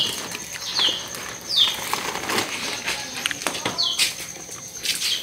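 Small caged birds giving about five short chirps that drop in pitch, spaced irregularly. A steady high-pitched whine runs underneath, with a few light knocks.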